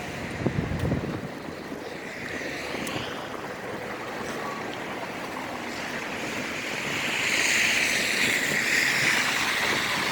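Snowstorm street ambience: wind buffets the microphone about half a second in, then a vehicle passes, its tyres hissing through snow and slush, with the hiss growing louder over the last few seconds.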